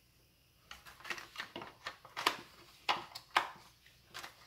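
Hard plastic clicking and knocking: a few light taps as a plastic drum magazine is handled and seated against a gel blaster's plastic body and feed tube.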